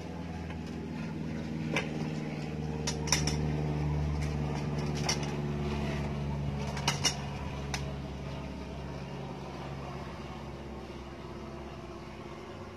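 A low, steady mechanical hum like an engine, swelling through the first half and then fading, with a few sharp clicks and light knocks scattered through the first eight seconds.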